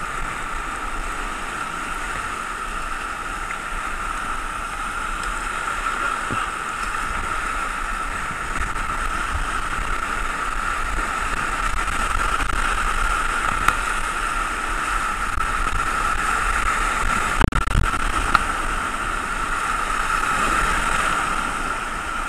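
Whitewater rapids rushing steadily around a kayak, with the paddle blades splashing through the water. A brief low knock comes about seventeen seconds in.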